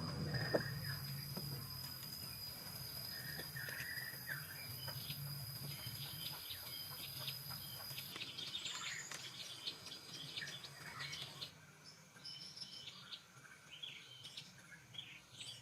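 Outdoor natural ambience: a steady high insect drone that stops about halfway through, with birds chirping and scattered light clicks and taps.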